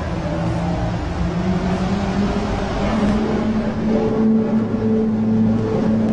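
One of the viral 2012 'strange sounds' recordings: a loud, unexplained low drone with a fainter higher overtone over a noisy background. Its pitch steps up partway through and then holds steady.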